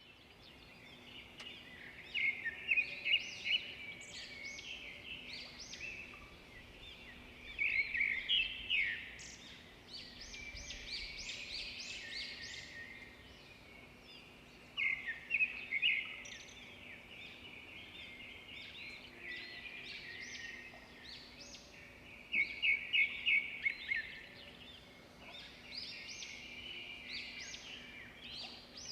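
Wild songbirds singing: bouts of rapid chirping phrases every few seconds, the loudest about two, eight, fifteen and twenty-three seconds in, over a faint steady low hum.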